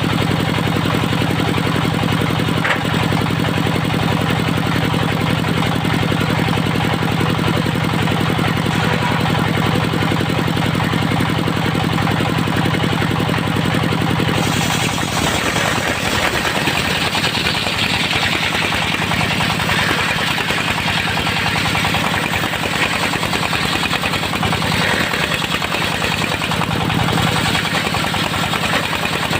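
Engine-driven circular sawmill running steadily; about halfway through the sound changes as a loud, rough hiss comes in over the engine, the blade cutting into the teak.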